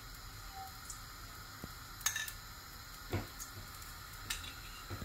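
A spoon scraping ghee out of a glass bowl into a small steel kadai on a gas burner, with a few light clinks about two, three and four seconds in, over a low steady hiss.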